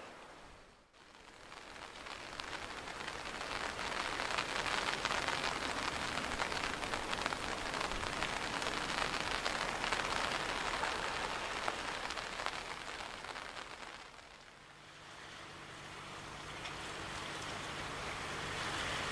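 High-speed jetfoil running across the bay: a steady rushing hiss of water and engine that swells and then fades. A low steady hum comes in during the last few seconds.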